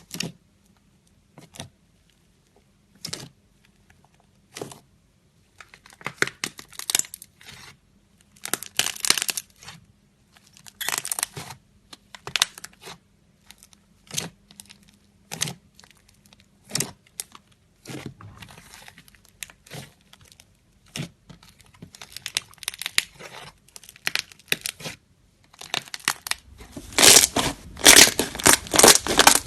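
Fluffy slime being pressed and stretched by hand, giving sharp crackles and pops. Some come singly, some in quick clusters, and they grow denser and louder over the last few seconds.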